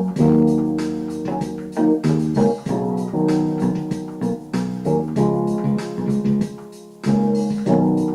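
Instrumental background music on a keyboard: sustained organ-like chords that change every second or so, with a brief dip near the end.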